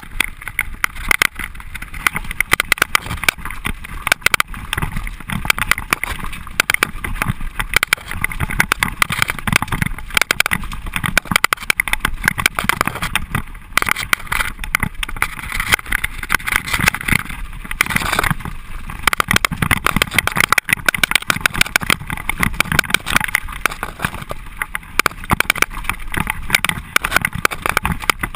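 Mountain bike descending a rough dirt and rock trail at speed: constant rattling and knocking of the bike over the bumps, with tyre rumble on dirt.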